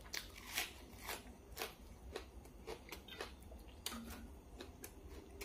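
Close-up crunchy chewing of a raw vegetable: crisp crunches, about two a second.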